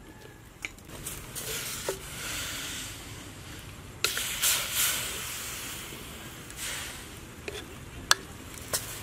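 Wooden spatula stirring whole quail in water in a metal wok: water sloshing and swishing in a few strokes, with several sharp clicks of the spatula against the pan.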